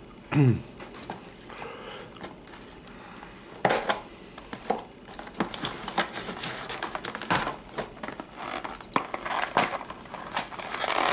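Cardboard packaging being handled: a small cardboard box is worked loose and lifted out of a cardboard insert, with scattered clicks, scrapes and rustling that thicken near the end. A brief falling tone sounds right at the start.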